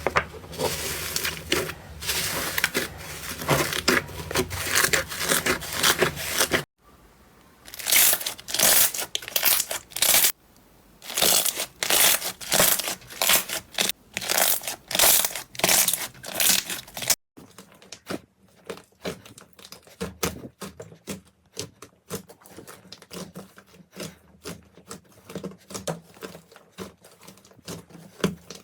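Slime being pressed and squished by hand, making dense crackling, crunchy popping sounds. It changes abruptly twice as one clip gives way to the next, and the last part is quieter with sparser pops.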